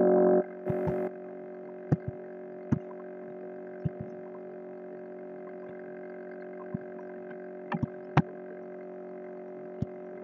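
A loud droning hum cuts off about half a second in and gives way to a fainter steady electrical hum. About ten sharp computer-mouse clicks are scattered through it, some in quick pairs, the loudest about three-quarters of the way through.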